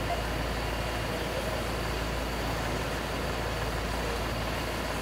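Vehicle engine idling steadily, a constant low hum under an even rumble.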